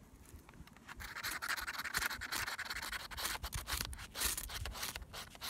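Metal scraper struck again and again down a ferrocerium rod to throw sparks onto a pile of wood shavings: a quick run of rasping scrapes that starts about a second in. The shavings are not catching yet.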